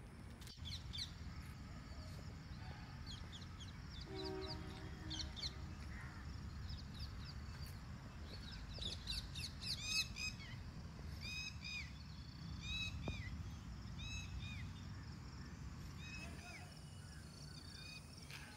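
Birds chirping and calling: many short, arched chirps repeating, densest around the middle, with a lower call about four seconds in, over a steady low background rumble.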